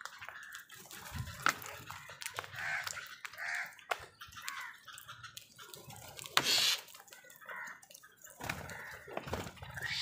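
A flock of house crows calling in short caws while feeding, mixed with sharp taps of beaks pecking at a plastic food bowl. A brief loud rustle about six and a half seconds in.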